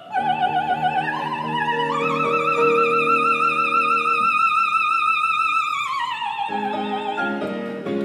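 Operatic soprano with piano: she climbs in steps to a high note, holds it with wide vibrato for about four seconds, then glides down as the aria nears its close. The piano plays sustained chords beneath her, falls silent during the held note and comes back in as she descends.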